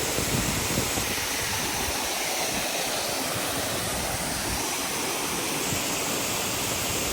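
Steady rush of water pouring over a waterfall, an even hiss with no change in level.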